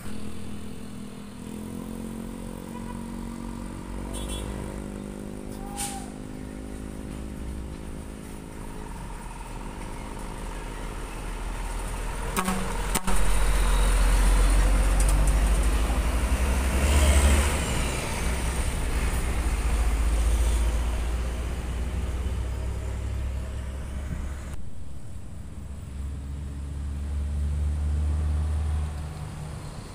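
Diesel container trucks driving past on a road. An engine hum is steady early on; a tractor unit then passes close by, and its engine rumble and tyre noise are the loudest part, peaking about a third of the way in. The sound then eases as another truck approaches.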